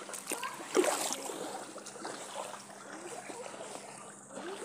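Shallow floodwater sloshing and trickling around feet wading at the edge of a flooded road, with one sudden louder moment about a second in.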